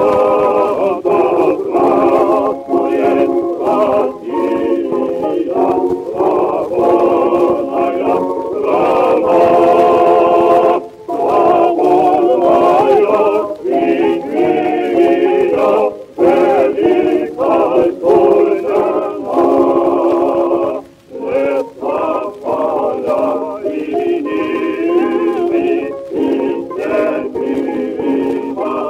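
Male vocal quartet singing a Russian song in close harmony with orchestral accompaniment, played back from a 1918 acoustically recorded Columbia 78 rpm disc. The sound is narrow-band, with the voices filling the middle range. There are short breaks between phrases.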